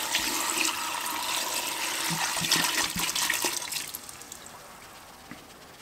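Vinegar poured from a plastic jug into a plastic bucket of steel sockets: a steady splashing pour that thins out and fades about four seconds in.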